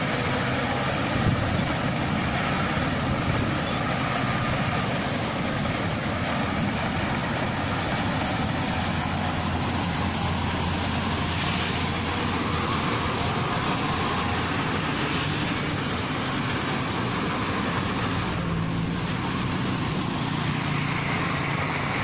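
New Holland combine harvester's diesel engine running steadily as the machine drives along the road.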